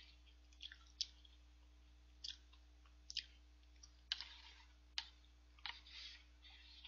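Quiet noodle eating with wooden chopsticks from a paper bowl of udon. Scattered sharp clicks and a couple of short hissing slurps stand out over a faint steady hum.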